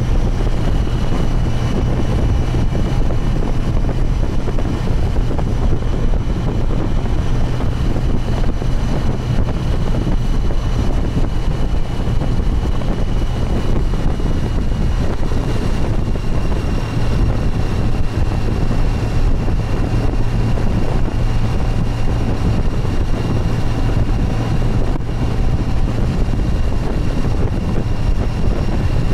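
Motorcycle riding at a steady speed: a constant low engine hum under heavy wind noise on the microphone, with a faint steady high whine.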